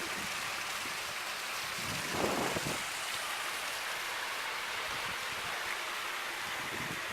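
Landscape waterfall splashing steadily into a pool, an even rushing of water, with a brief louder swell about two seconds in.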